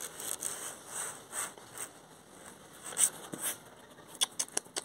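A dog being petted: soft rustling and breathy sniffing noises every half second or so. Near the end comes a quick run of light, sharp clicks.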